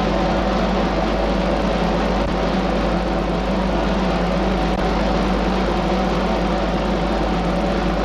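Massed snare drums in a continuous drum roll, with a few steady held tones beneath it, on an old optical film soundtrack with a constant low hum.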